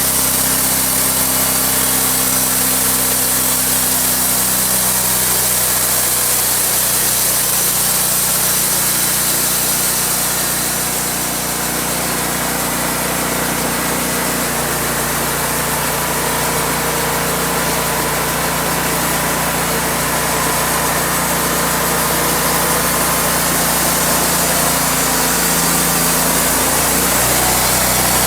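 Sawmill running steadily: an engine drives the saw as it cuts through wood, with a strong high hiss over the engine's hum.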